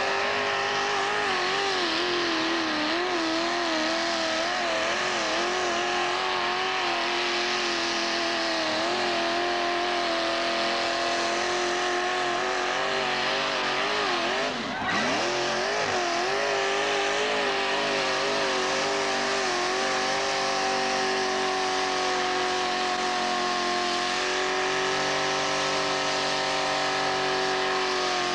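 Mud-racing vehicle's engine held at high revs as it ploughs through a mud pit, its pitch wavering up and down. About halfway through, the revs drop sharply and climb straight back.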